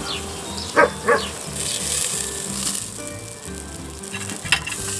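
Bacon-wrapped pineapple and watermelon sizzling on the hot grate of a small charcoal table grill, a steady hiss. Two short, loud sounds come close together about a second in.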